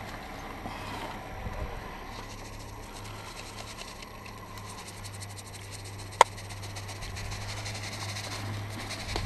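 Handling noise close to the microphone: rustling with a run of fine rapid ticks and one sharp click about six seconds in, over a low steady hum.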